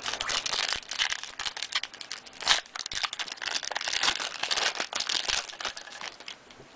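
Foil trading-card wrapper being torn open and crinkled by hand, with the cards inside rustling and sliding against each other: an irregular run of crackles and tearing rustles.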